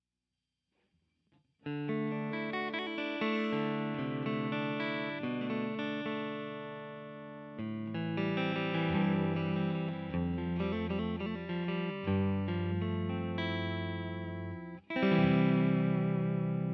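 Electric guitar, a Fender Stratocaster, played clean through a UAFX Dream '65 Reverb amp-emulator pedal: chords and single notes with reverb, starting about one and a half seconds in. Near the end the playing stops for a moment, then a strummed chord rings out.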